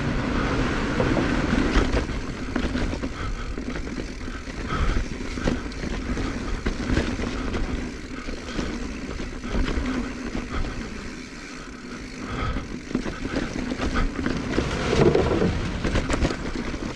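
2021 Giant Trance X 29 full-suspension mountain bike descending a dirt trail: tyres rolling over the ground and the bike rattling and knocking irregularly over bumps, with wind noise on the microphone.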